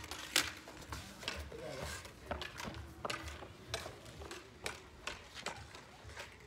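Floorball play: irregular sharp clicks and taps as plastic floorball sticks strike the hollow plastic ball and scrape the court surface, the loudest hit about half a second in.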